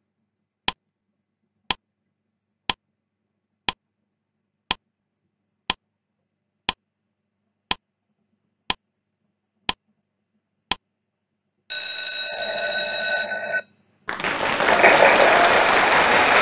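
Countdown-timer sound effect: eleven sharp ticks, one a second, then a ringing alarm-like tone for about two seconds as the count reaches zero. A louder, noisy rushing sound effect starts about two seconds later.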